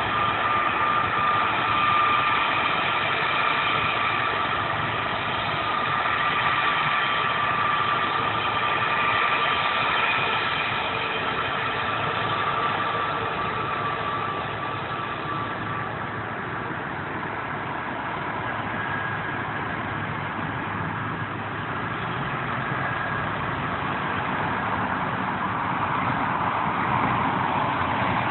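Airbus A330-300's Pratt & Whitney PW4000 turbofan engines running steadily, a jet whine of several held tones over a broad rush, the whine easing somewhat past the middle.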